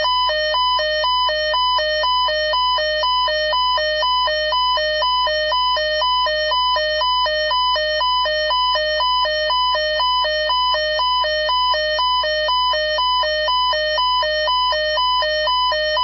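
Weather radio alert alarm going off for a test tornado warning: a loud electronic two-tone alarm that switches steadily between a low and a high tone about twice a second, signalling an incoming warning message.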